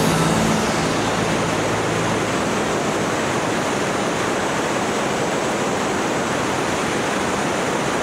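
Steady rushing wind and airflow noise on the microphone of a microlight in flight, with no clear engine note standing out. A faint low hum fades out in the first two seconds.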